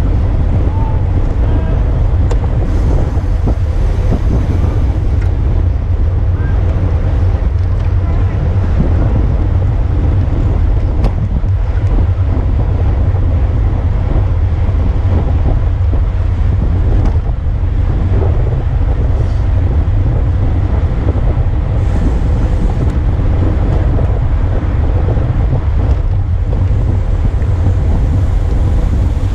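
Loud, steady wind buffeting on the microphone of a camera on a road bike moving at racing speed in a pack, mostly a deep rumble.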